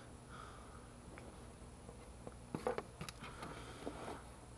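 Cardboard box being handled and turned over in the hands: a cluster of light taps and rustles in the second half, loudest about two and a half seconds in, over a faint steady hum.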